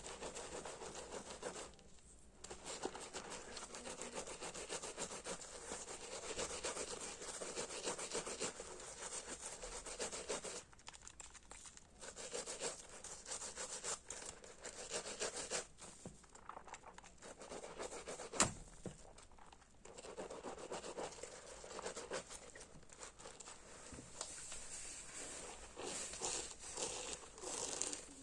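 A hard sponge soaked with soap being worked by hand, its foam giving a dense crackle in long stretches, with short pauses about 2, 11 and 19 seconds in and a single sharp click just before the last pause.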